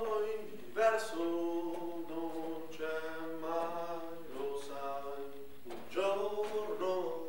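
A voice singing unaccompanied, holding long notes of about a second or more with short breaks between them.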